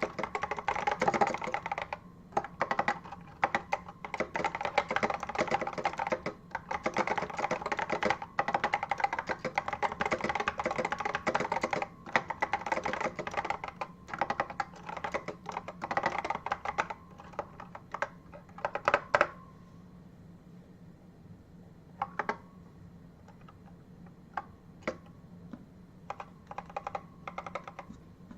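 Fast, continuous typing on an Apple M0110 keyboard with its Alps key switches, a dense run of clicky keystrokes. About two-thirds of the way through the typing stops, leaving only a few scattered single keystrokes.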